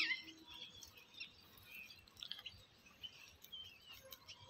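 Faint, scattered chirps of small birds, with a few light ticks.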